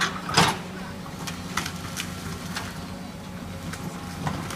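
Excavator breaking up house demolition debris: a steady engine hum with scattered sharp knocks and cracks, the loudest about half a second in.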